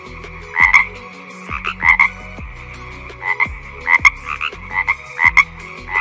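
Frogs croaking: short, repeated croaks, mostly in quick pairs or threes, coming about once a second.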